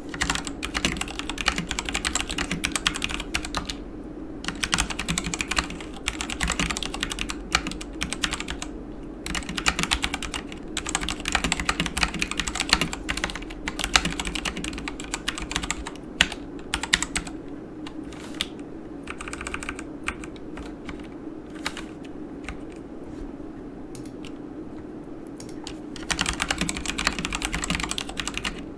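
Typing on a Yunzii KC84 mechanical keyboard with Gateron Black linear switches: rapid runs of key clacks broken by short pauses, with the keystrokes growing sparse for several seconds past the middle before a dense run near the end.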